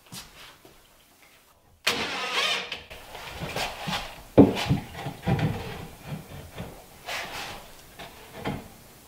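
Wooden boards being handled and laid onto a wooden cabinet frame: a sudden burst of rasping, scraping noise about two seconds in, then several separate knocks of wood on wood, the loudest a little past the middle.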